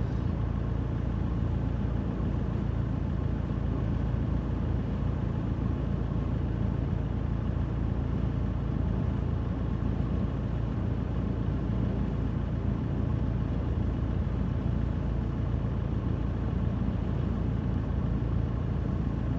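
Steady low rumble of a gale and rough breaking surf, heard muffled from inside a parked car.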